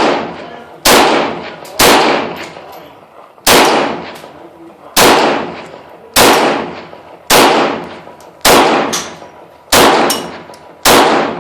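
Semi-automatic rifle fired shot after shot, about ten sharp reports a second or so apart, each echoing away before the next.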